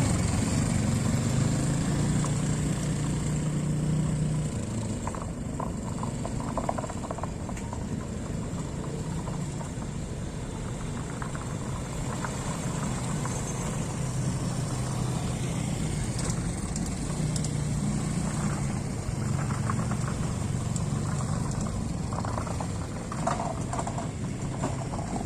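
ATV engine running, its pitch rising and falling as the throttle is opened and eased off, higher near the start and again past the middle.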